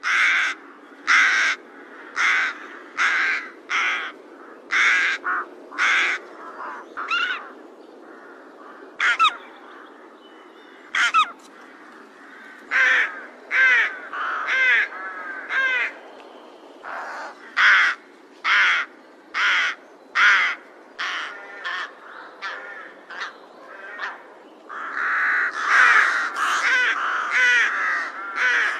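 Crows cawing: a long series of short, harsh caws about once a second, with a few longer gaps, over a steady low background noise. Near the end the calls crowd together and overlap.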